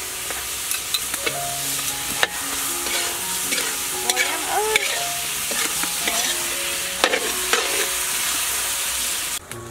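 Shrimp sizzling and frying in a hot steel wok while a metal ladle stirs them, scraping and clinking against the wok. The sizzle cuts off suddenly near the end.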